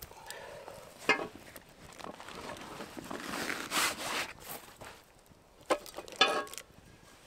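Gear being handled: a sharp knock or clank about a second in, a stretch of rustling and scraping, then two more knocks close together near the end.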